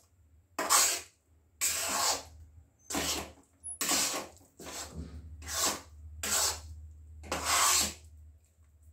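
A spatula scraping and stirring thick ground amla paste around a nonstick kadhai: about seven scraping strokes at an uneven pace while the paste cooks down.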